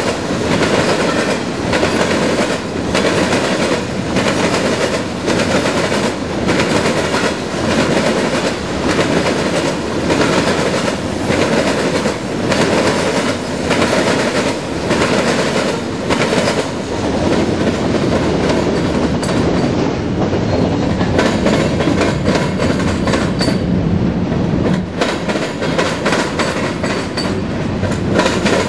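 Freight train of covered hopper cars rolling past close by, wheels clattering over the rail joints in a regular rhythm of about one knock a second. The clatter evens out into a steadier rumble past the midpoint.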